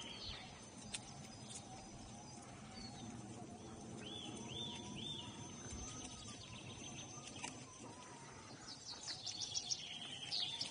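Woodland bird calling: three short arched chirps about four seconds in and a quick run of sharp chirps near the end. Under them runs the faint wavering hum and rolling noise of a Kingsong KS16 electric unicycle on a dirt forest track.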